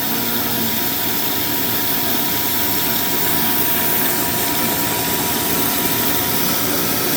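Large horizontal bandsaw running through a long cut in 1-inch plate stock: a steady, unchanging mechanical running noise with a faint constant whine.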